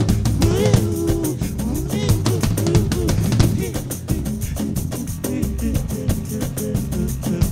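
A band playing an instrumental passage: drum kit keeping a steady beat under bass and other instruments.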